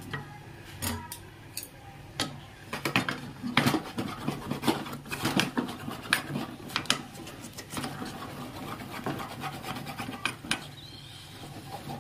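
A spoon scraping and knocking against a cooking pot in quick, irregular strokes, as thickening rice-flour dough (khichu) is stirred continuously to keep it from forming lumps.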